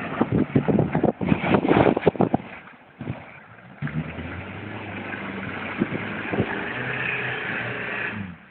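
A 4x4 off-roader's engine revving as it drives through a muddy water hole. The first two seconds or so are a rough clatter of splashes and knocks. From about four seconds in, the engine holds a steady high rev.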